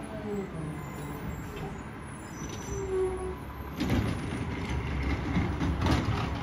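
Mack MRU recycling truck with a McNeilus ZR automated side-loader: the engine runs steadily as the truck rolls up. About four seconds in, the engine revs up and there are clunks as the hydraulic arm grabs a cart and lifts it.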